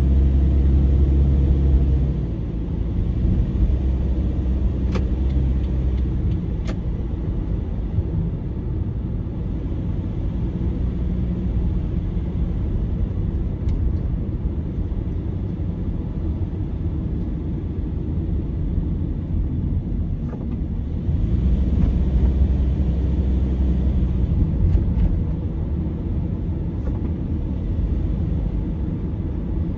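Car driving along a town street: steady engine and road rumble, with a deeper hum that swells at the start and again about two-thirds of the way through. A few faint clicks come about five to seven seconds in.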